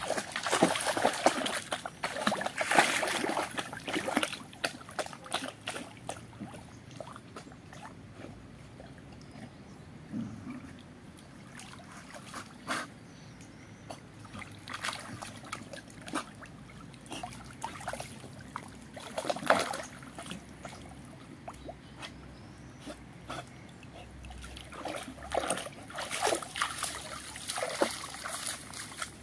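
A dog wading and splashing in shallow lake water, with irregular splashes and sloshing. It is busiest in the first few seconds and again near the end.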